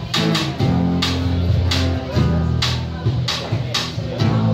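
Live band playing: low bass notes and guitar under a steady drum beat of about two hits a second.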